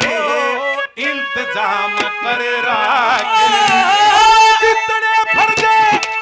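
A man singing a Haryanvi ragni folk song into a microphone in a high, full voice, holding one long note about halfway through, over live instrumental accompaniment with drum strokes.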